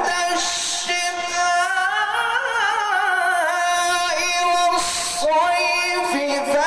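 A man reciting the Quran in melodic tilawat chant, holding long, ornamented notes in a high register.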